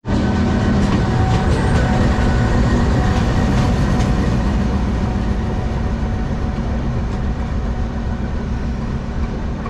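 Diesel-electric locomotive running light on the loop line close by, its engine running with a steady low hum. It fades slightly as the locomotive moves away.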